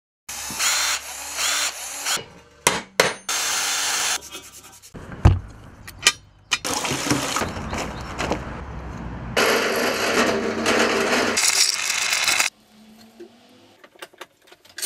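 A cut-together run of short workshop tool noises: scraping and rasping sounds and a power tool running, each stopping abruptly, with a sharp thud about five seconds in and a few light clicks near the end.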